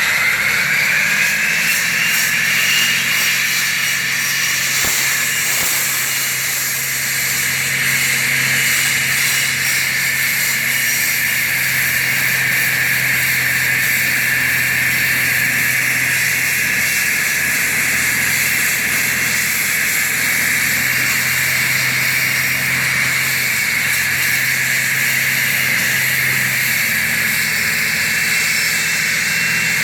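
Concrete floor saw running: its high whine climbs in pitch during the first second or two, then holds steady over a low hum.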